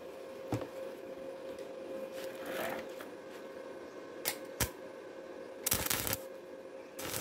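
Stick-welding arc on thin galvanized steel tube, struck in short crackling bursts: a few sharp ticks, then a half-second burst of arc crackle about six seconds in and another starting at the very end. A faint steady hum runs underneath.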